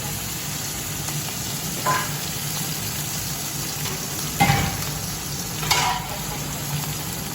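Hilsa fish pieces sizzling steadily as they fry in hot oil, with three short clinks of a cooking utensil against the pan, the middle one loudest.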